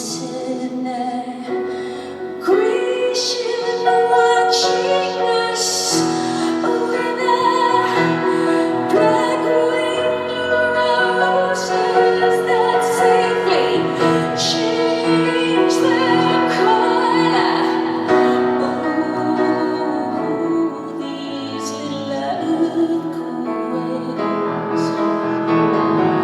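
Live music: a woman singing in long, sustained lines over piano chords.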